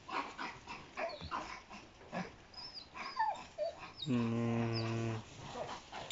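Dogs barking repeatedly in short sharp barks. About four seconds in there is a steady, low-pitched held sound lasting about a second.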